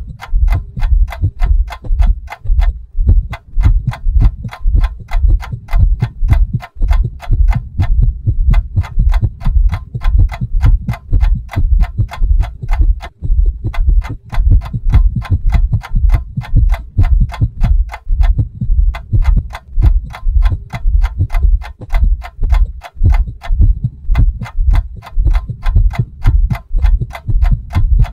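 Background soundtrack of fast, even ticking over deep pulsing bass thumps, the pattern pausing briefly about every five seconds.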